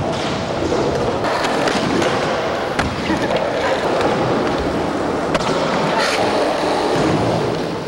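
Skateboard wheels rolling steadily across a smooth skatepark floor, with a few sharp knocks.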